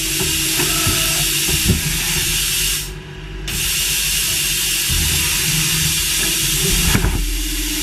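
Machining-line noise: a steady hiss over a low machine hum, dipping briefly about three seconds in and changing abruptly near the end.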